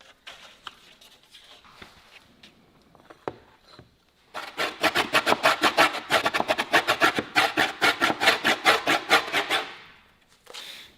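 Wood being worked with a hand tool in a fast run of back-and-forth strokes, about six a second, starting a little under halfway through and stopping about a second before the end. A few faint knocks come before it.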